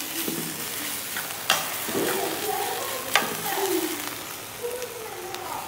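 Leafy greens sizzling in a hot non-stick pan while a metal spoon stirs them, with a steady hiss. The spoon knocks sharply against the pan twice, about a second and a half in and again about three seconds in.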